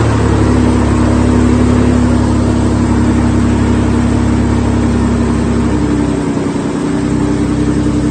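Toyota 5VZ-FE 3.4-litre V6, freshly swapped in, running steadily just after its first start; its note shifts slightly about six seconds in. The owner says it sounds great.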